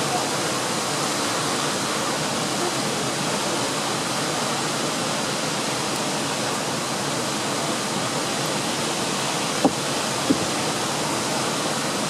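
Mountain waterfall rushing steadily down a rock face, a constant hiss of falling water, with two brief sharp sounds about ten seconds in.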